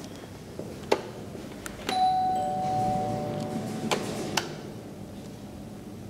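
Two-note elevator chime: a higher note struck about two seconds in and a lower one about half a second after, both ringing for a second or two. There is a sharp click before it and two clicks after.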